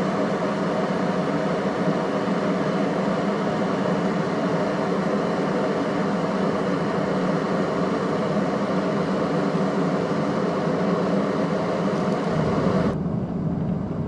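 Russell Hobbs 26080 glass electric kettle heating a full 1.7 litres of water toward the boil: a loud, steady rushing hiss. About a second before the end the hiss drops away suddenly and a deeper rumble takes over as the water nears boiling.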